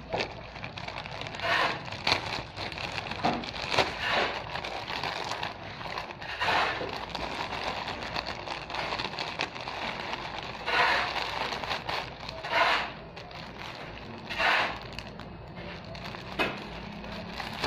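Plastic packaging crinkling and rustling in the hands: a plastic courier pouch handled and opened, then a clear plastic bag of face masks, in irregular bursts.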